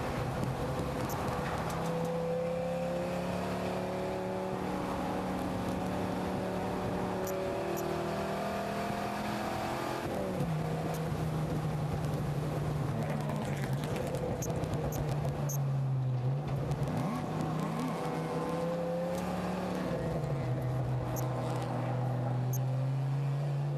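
Dodge Ram SRT-10's 8.3-litre V10 running hard on track, heard from inside the cab. The engine note holds steady, drops sharply in pitch about ten seconds in, sags and climbs back a few seconds later, and drops again near twenty seconds.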